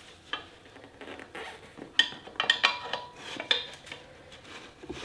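Metal tire levers clinking and scraping against a scooter's cast alloy wheel rim as the tire is pried off it. One sharp clink comes near the start, then a cluster of ringing clinks from about two to three and a half seconds in.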